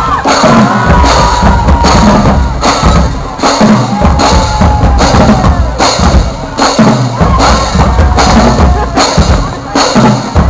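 Marching band drumline playing a loud, driving cadence, with heavy bass drums under rapid, regular drum strikes.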